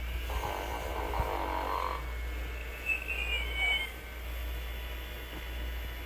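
Sing & Snore Ernie toy playing its recorded snore: a rasping snore on the in-breath, then a short whistle on the out-breath, over a steady low hum.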